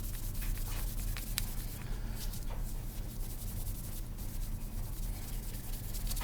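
Brass Zippo lighter case being rubbed with a polishing cloth in quick, uneven strokes, working the tarnish off the metal.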